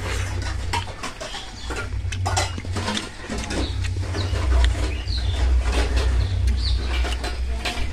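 A man eating a meal by hand: chewing and small clicks and clinks of the plate. Underneath is a steady low rumble, and a few short high chirps sound about halfway through and near the end.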